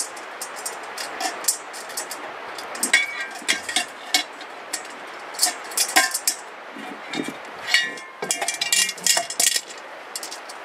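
Metal grill parts and hardware clinking and tapping as they are handled and fitted by hand, a few clinks ringing briefly, with a busier run of clatter about seven to nine seconds in.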